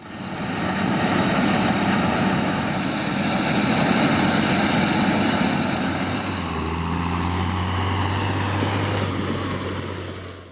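Heavy farm machinery running at work during a maize silage harvest, a loud steady engine and machine noise. A deeper steady engine hum joins about six and a half seconds in.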